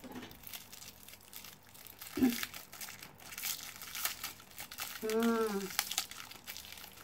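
Plastic wrapper of a tamarind candy crinkling as it is twisted and pulled open by hand, with a short hummed "mm" about five seconds in.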